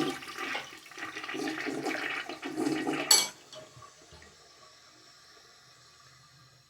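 Toilet being flushed: rushing water for about three seconds that cuts off with a sharp click, then a faint trickle. The toilet does not flush properly.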